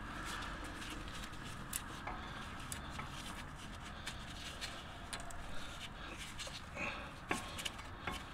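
Scattered light clicks and taps of new brake pads being slid into a Jeep Wrangler JK's front brake caliper bracket and its metal pad clips, over a low steady background noise.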